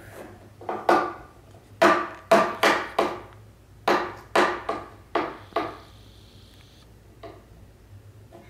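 Plastic toy knocked and banged against a wooden tabletop by a toddler: about ten sharp, uneven knocks in quick clusters over the first six seconds, then one faint knock near the end.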